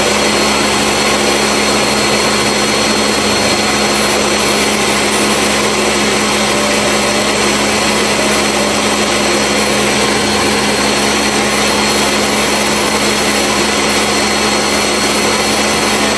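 Ninja countertop blender running steadily at full speed, blending a liquid fruit-and-yogurt smoothie: an even motor hum with a faint high whine.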